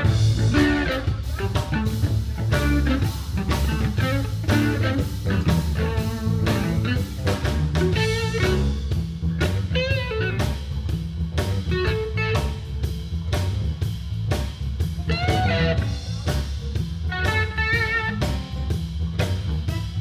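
Live blues band playing: electric guitar lead over bass guitar and drum kit.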